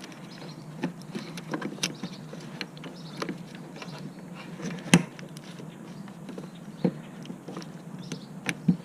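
Scattered clicks and knocks of the new fuel pump module being pressed down onto its gasket and seated in the fuel tank opening, with one sharper knock about five seconds in. A steady low hum runs underneath.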